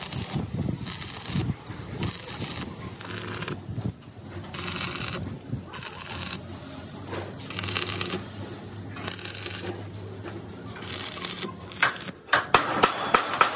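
Stick (arc) welding on steel plate: the arc crackles and sizzles in short runs, starting and stopping every second or so. Near the end comes a quick series of sharp taps.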